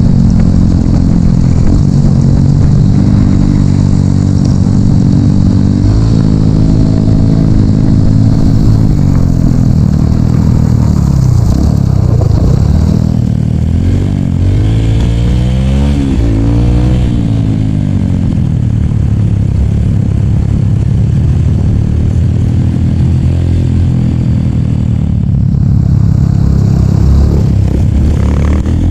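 Dirt bike engine running hard while riding, its pitch rising and falling several times as the throttle is opened and eased off.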